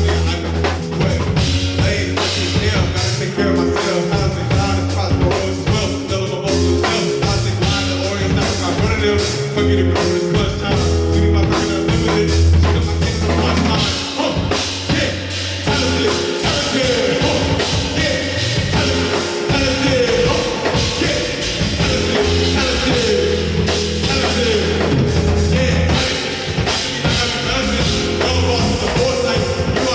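Live rock band playing, with a drum kit keeping a steady beat under a heavy bass line.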